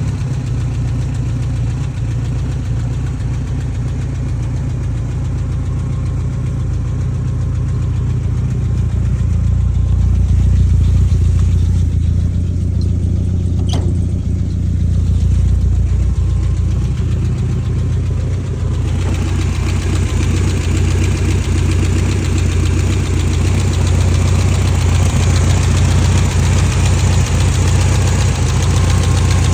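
1989 BMW E30 M3's S14 four-cylinder engine idling steadily, which the owner suspects of misfiring. A single sharp click about halfway through, and the sound turns brighter and hissier about two-thirds of the way in.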